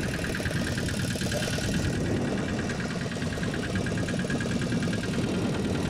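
A small fishing boat's engine idling with a steady, rapid pulsing beat.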